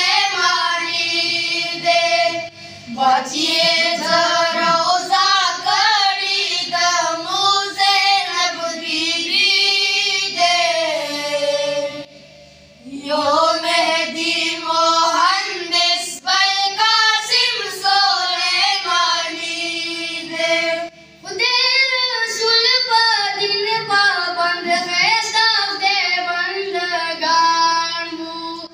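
Boys' voices singing a Pashto devotional song together, amplified through microphones, with two short breaks for breath, one near the middle and one about two-thirds of the way through.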